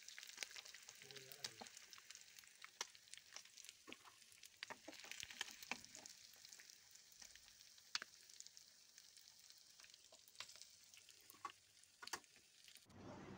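Faint sizzling of spice-coated fish pieces shallow-frying in oil in a pan, with scattered sharp crackles.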